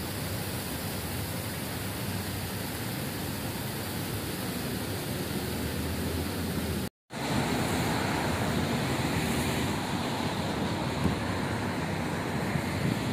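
Steady hiss of fountain water jets splashing. About halfway there is a sudden brief dropout, after which it becomes street ambience: steady traffic rumble with wind on the microphone.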